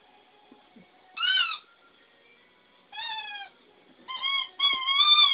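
A dog's squeak toy squeaking as he chews it. There are single squeaks about a second in and at three seconds, then a quick run of squeaks near the end.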